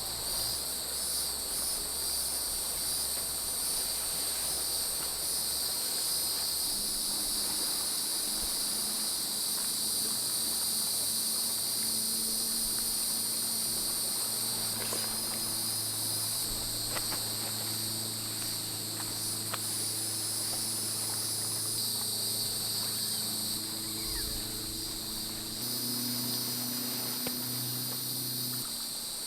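Steady, shrill chorus of insects such as crickets or katydids, trilling on without a break, with a faint low hum underneath.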